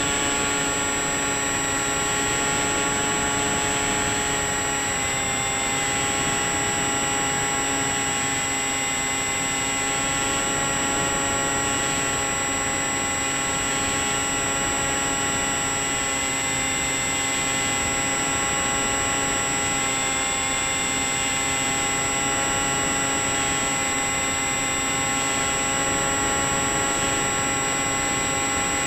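Electric motor and pusher propeller of a Bixler 3 RC glider running steadily, heard through a camera mounted on the plane, with a steady whine over wind rush; the pitch rises slightly twice.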